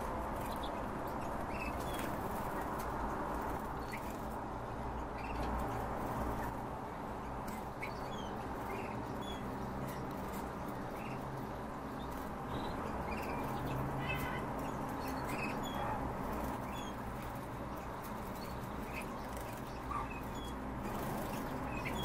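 Caged songbirds, among them European goldfinches, giving short high chirps and call notes scattered throughout. Underneath is a steady background noise.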